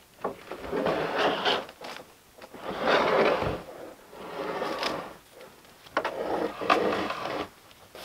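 Scraping and crunching of snow as a corrugated roofing sheet is dragged off a snow-covered lumber stack, in four long bursts with short pauses between them.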